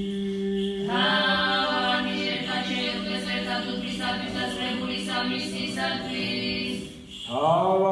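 Church choir singing Orthodox liturgical chant a cappella over a low held drone note. The chord breaks off about seven seconds in and a new sung phrase begins.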